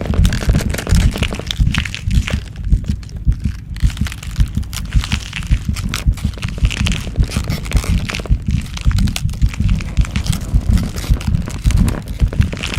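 Transformation growth sound effect: rapid, uneven deep thumping like a pounding heartbeat, with crackling and crunching layered over it.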